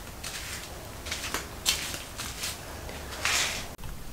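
Faint scattered clicks and rustles, with a short hiss about three seconds in.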